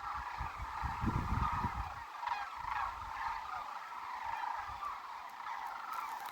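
A flock of sandhill cranes calling continuously, many rattling calls overlapping into a steady chorus. A low rumble sits under the first two seconds.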